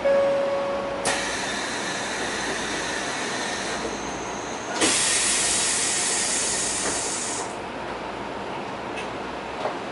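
Kyoto Municipal Subway 20 series train with Mitsubishi SiC drive running at speed, heard from inside the car: steady wheel and rail noise with a short steady tone in the first second. A loud hiss sets in about five seconds in and fades after about two and a half seconds.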